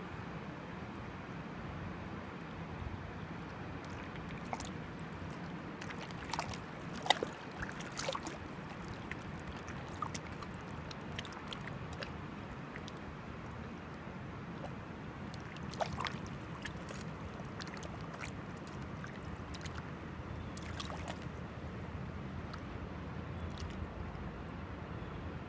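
Water flowing and lapping in a steady wash, with scattered short clicks, the sharpest about seven seconds in and another cluster near sixteen seconds.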